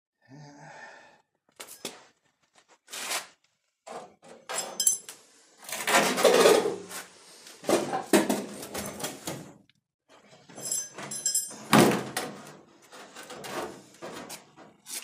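A loose sheet-steel car body panel being handled and set against the car: a string of irregular thunks, scrapes and metallic rattles, loudest about six and twelve seconds in.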